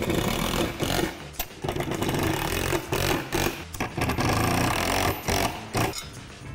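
Cordless drill running in repeated bursts with brief stops between them, driving bolts through a steel basketball rim bracket into the backboard.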